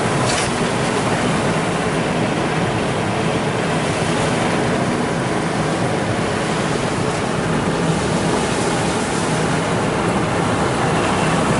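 Car being driven: steady road, tyre and engine noise, with a low hum under an even rushing noise.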